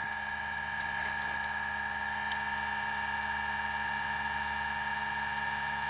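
3D-printed pulse motor rotor spinning at about 2,000 RPM, its coils pulsed by a JL94 circuit: a steady whine with two high tones over a low hum.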